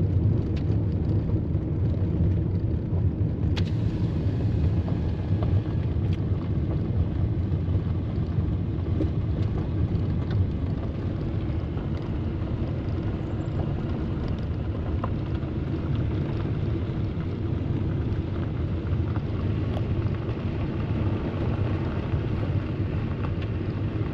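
Steady low vehicle rumble, a constant engine hum, with a few faint clicks.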